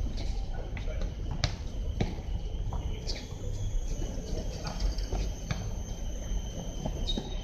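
Basketball bouncing on an outdoor court: scattered sharp thuds at irregular intervals, over a steady high insect drone.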